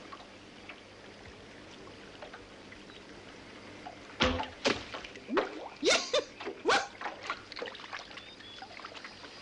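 Canoe paddles dipping into river water: faint trickling at first, then a quick run of loud splashing strokes from about four seconds in, tapering to smaller splashes.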